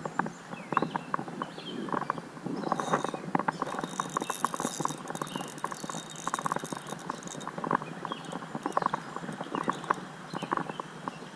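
Footsteps wading through a rocky creek: irregular clacks and knocks of stones shifting underfoot over the steady rush of the water.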